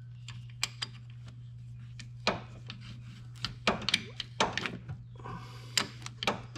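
Water pump pliers clicking and knocking on a steel pipe nipple as it is turned into the engine block's oil drain port, with irregular metallic clicks throughout. A steady low hum runs underneath.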